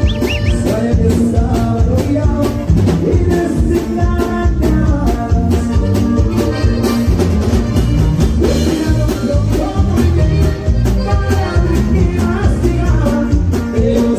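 Live band playing loud through a PA: a button accordion carrying the melody over acoustic guitar, electric bass and a drum kit keeping a steady beat.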